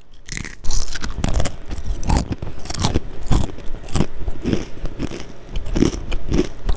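Close-up crunching and chewing of dry cornflakes: a string of irregular crisp crunches, a few each second.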